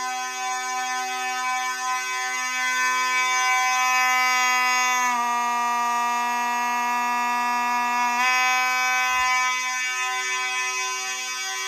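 Several fire alarm horns from a test alarm system sound together in a steady, continuous blare. The pitch of the whole sound shifts slightly for about three seconds in the middle, and some of the lower tones break on and off.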